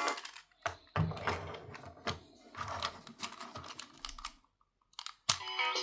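Plastic VTech Toot-Toot Drivers toy vehicles being handled on a plastic playset: irregular clicks, knocks and rattles, like typing. A short electronic toy tune starts near the end.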